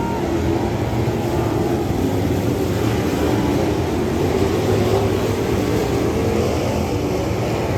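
Dirt Late Model race car engine running steadily under power.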